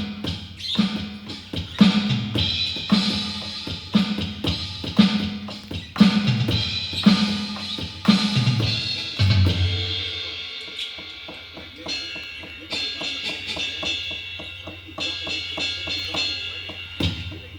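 Donner electronic drum kit being played: a drum is struck about once a second, then a heavier low hit about nine seconds in is followed by lighter, quicker strokes.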